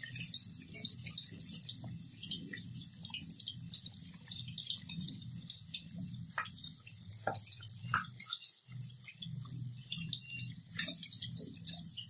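Chicken tikka pieces shallow-frying in a little hot oil in a steel kadai, a steady fine sizzle and crackle. Now and then a slotted metal spatula clicks against the pan, the sharpest click near the end.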